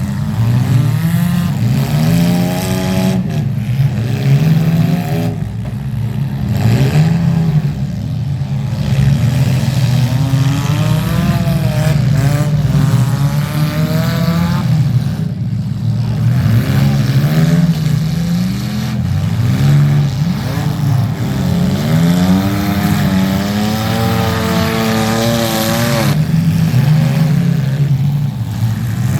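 Demolition derby car engines revving hard over and over, their pitch repeatedly rising and falling as the throttles are worked.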